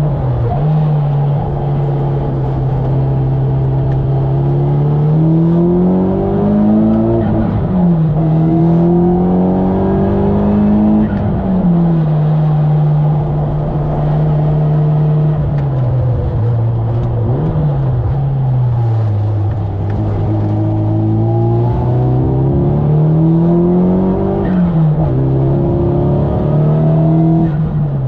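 Nissan Silvia S13's engine at racing pace, heard from inside the car: the revs climb several times and fall away sharply between corners.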